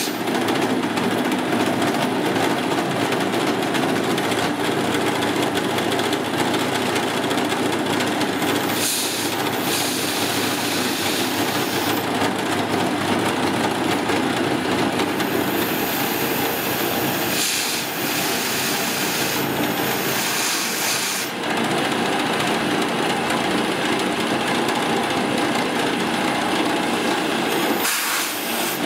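Converted Harbor Freight mill drill cutting hot-rolled steel with a 3/8" two-flute end mill at 850 RPM, a steady grinding cutting noise from the spindle and tool in the work. Compressed air from a hand blow gun hisses in several bursts over it, clearing chips from the cut.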